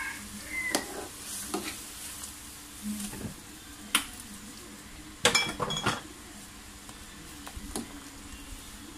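Steel ladle knocking and scraping against a metal wok as thick gravy is stirred: scattered clinks, with a quick cluster of knocks about five seconds in, over the faint hiss of the gravy simmering.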